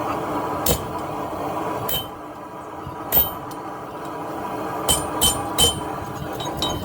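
Hammer blows on steel at an anvil, about seven ringing strikes at an uneven pace with a quick run of three about five seconds in, over a steady background hum.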